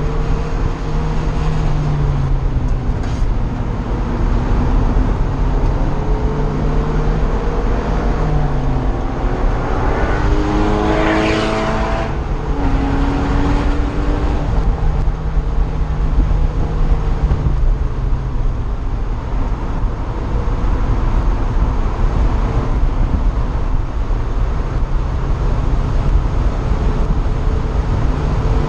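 In-car sound of a sports car's engine driven hard on a race track, the pitch climbing and then dropping at each gear change, with wind rushing through the open cockpit. About ten seconds in, a louder, higher engine note swells and fades.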